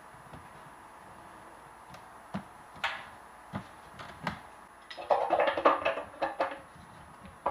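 Soft knocks and clicks from hands working on a parked motorbike, a few separate ones, then a louder burst of rapid clattering and clinking about five seconds in.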